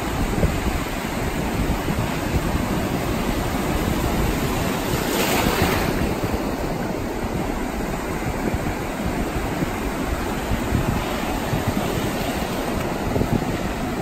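Surf on a sandy beach: small waves breaking and washing in over the shallows in a steady rush, swelling to a louder hiss about five seconds in. Wind rumbles on the microphone underneath.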